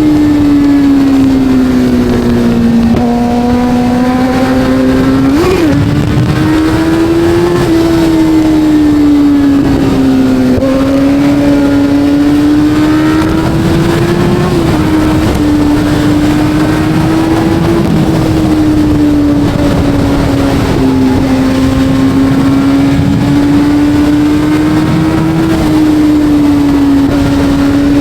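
Kawasaki Z900's inline-four engine running under way at moderate revs, its pitch rising and falling gently as the throttle is eased on and off, with a brief sharp rev spike about five and a half seconds in.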